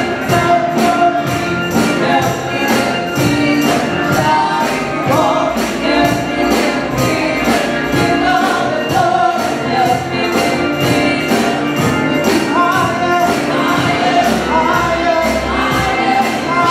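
Gospel singing by a group of women's voices, with a tambourine struck on a steady beat about twice a second.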